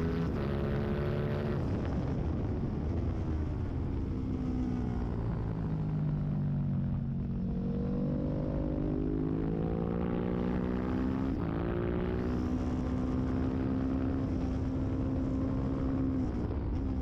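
Racing motorcycle engine running at high revs. Its pitch slides down as the bike slows for a corner about five to seven seconds in, then climbs again as it accelerates away.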